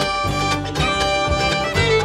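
Acoustic bluegrass band playing an instrumental break, with the fiddle leading over banjo, mandolin, guitar and upright bass.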